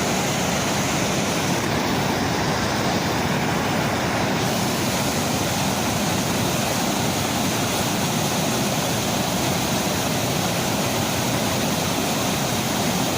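Waterfall rushing, a steady, even roar of falling water close to the microphone.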